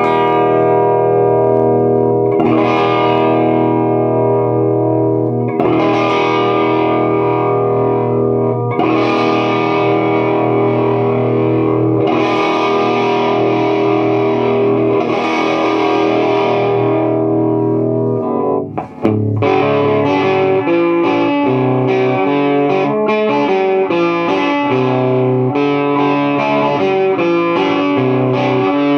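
Les Paul electric guitar on its bridge P-90 pickup played through a Fender 5F1 Tweed Champ kit amp, a small single-ended 6V6 valve amp, overdriving with the volume knob turned up from about 4 to 8. Distorted chords are strummed and left to ring every few seconds, then after a brief break near the middle the playing moves to a faster riff with quickly changing notes.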